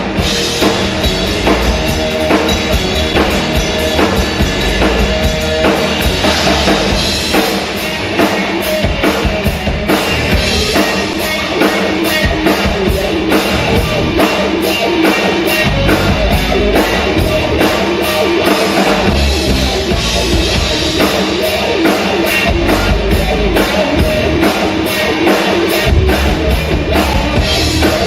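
Rock music with a driving drum kit beat and electric guitar.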